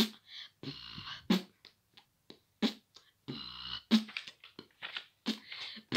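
Quiet vocal percussion keeping the beat between sung verses: a soft click about every 1.3 seconds, with two breathy hisses in between.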